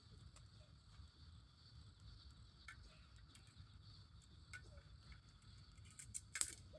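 Campfire crackling faintly: sparse small pops over a low rumble, with one louder crack near the end.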